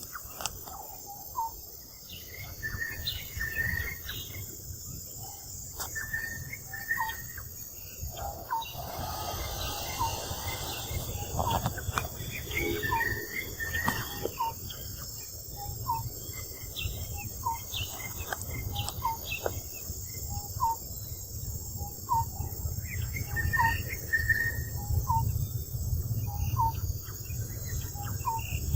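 Outdoor ambience: short repeated chirps, about one a second, over a steady high insect hiss and a low rumble.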